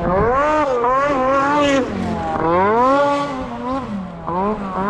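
Snowmobile engine revving up and down in long smooth swells as the rider hits the jumps, its pitch rising and falling several times.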